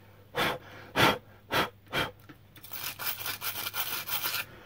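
Hand wire brush scrubbing corrosion off the rim of a metal LED spotlight housing, cleaning it back so new sealant can bond. Four strong separate strokes in the first two seconds, then quicker, lighter scrubbing.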